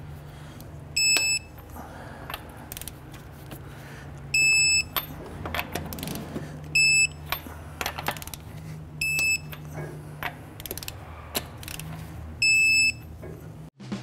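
Digital torque wrench tightening wheel lug nuts to 95 ft-lb: it gives a short high electronic beep five times, two to three seconds apart, each as a nut reaches the set torque. Ratchet clicks come between the beeps.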